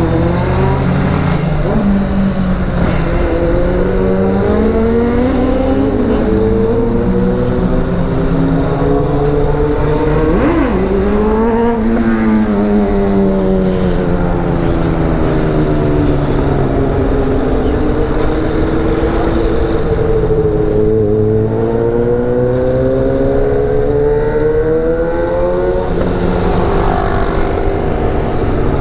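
Motorcycle engine under way, its pitch rising and falling again and again as the rider opens and closes the throttle through the gears, with wind rushing over the microphone.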